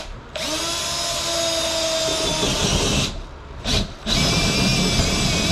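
Cordless drill boring through a wall with plywood inside it, in bursts. The motor spins up and runs for about three seconds, stops, gives a short burst, then runs again from about four seconds in.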